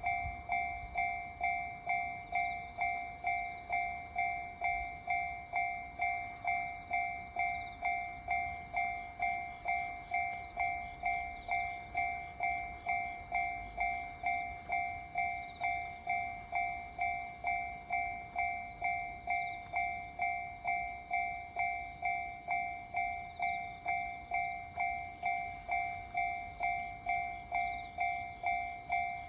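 Japanese railroad level-crossing warning bell ringing steadily, a two-tone clang repeating about three times every two seconds, signalling that a train is approaching.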